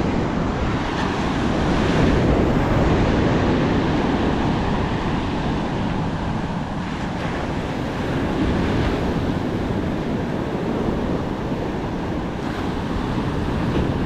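Ocean surf washing up a sandy beach in steady, swelling waves, with wind buffeting the microphone.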